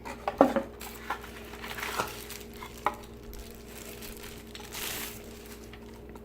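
Handling of a plastic wall-plug power strip: a few small clicks and taps, then a brief rustle a little before the end, over a faint steady hum.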